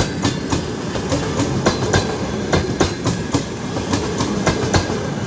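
Passenger train rolling past, its wheels clacking over rail joints in quick, uneven clicks over a steady rumble.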